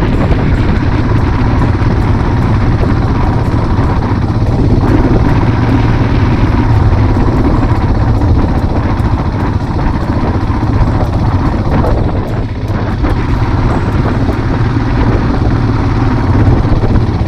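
Royal Enfield Himalayan motorcycle's single-cylinder engine running steadily and loud as the bike rides along in snow.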